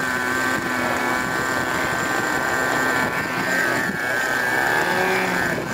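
Radio-controlled model helicopter running: a steady high whine with several close tones, plus wind noise on the microphone.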